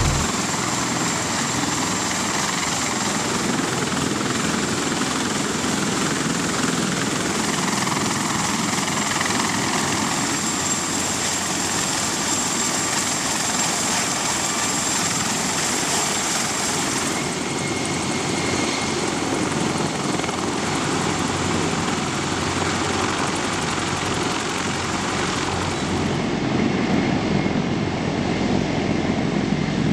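CH-53E Super Stallion heavy-lift helicopters running with rotors turning: a steady dense turbine-and-rotor noise with a thin high whine. The whine drops out a little over halfway through, and near the end the noise grows deeper and a little louder as one is airborne.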